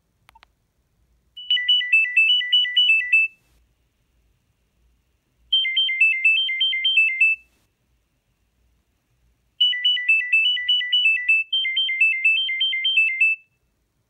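Nokia 3510i mobile phone playing ringtone previews from its ringtone menu: three bursts of quick beeping notes jumping between two pitches. The first two bursts last about two seconds each and the last about four seconds, with short gaps between them. A faint click comes just before the first burst.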